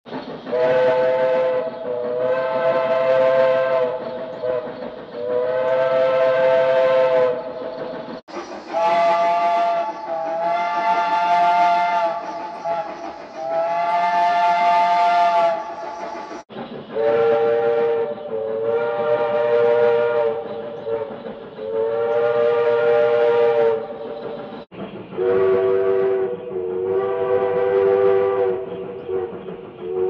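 A recorded steam locomotive chime whistle sounding three blasts, the first two almost run together, over the hiss of the train. The same recording plays four times at different pitches, cut off sharply between plays: first at one pitch, then higher, then lower, then lower still.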